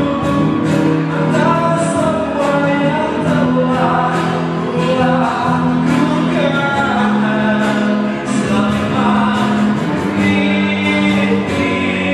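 A live acoustic band plays a slow religious pop song. A male lead singer sings held notes over strummed acoustic guitars and a steady cajon beat.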